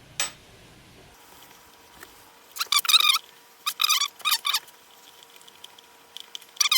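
Sharp click, then short high-pitched squeaks in bursts of about half a second, repeated, as steel gib screws are turned with an Allen key.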